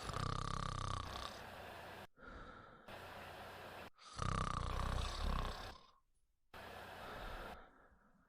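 A sleeping woman snoring: two snores about four seconds apart, each about a second long, with a softer breath near the end.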